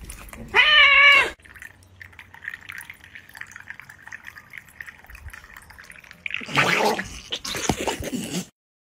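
A cat meowing once, a loud wavering call about half a second in. Later a louder, rough, noisy stretch starts about six seconds in and ends abruptly.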